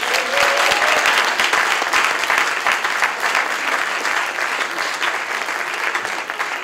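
Audience applauding, a dense patter of many hands clapping. It is loudest in the first few seconds and slowly thins out.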